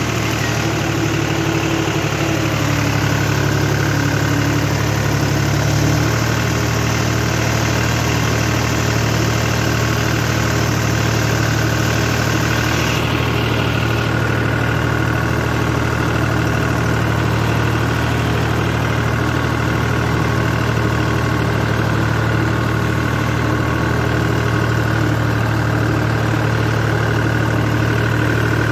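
John Deere tractor's diesel engine running steadily at a constant pace while the tractor works a flooded paddy field, puddling it for rice.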